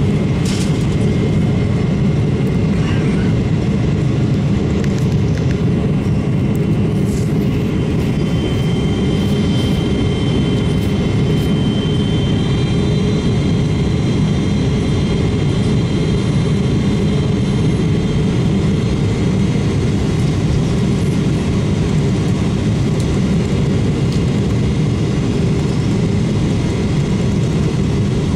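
Steady cabin noise of a Boeing 777-300ER in flight: the GE90 turbofan engines and the rushing airflow heard from inside at a window seat. A faint high whine comes in about a third of the way through.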